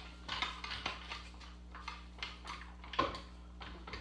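Hydraulic floor jack being pumped to lift the front of a golf cart: a run of light metallic clicks and clanks, about three a second, with a louder clank about three seconds in.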